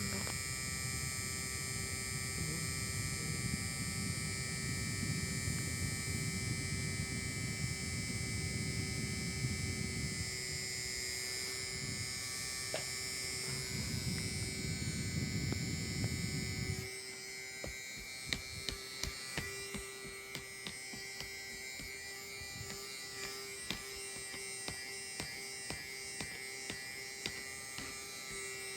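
A 40 cm Lavínia electric fan running, its motor giving a steady hum and whine. A low rush of moving air stops a little past halfway through, leaving the motor hum with scattered light clicks.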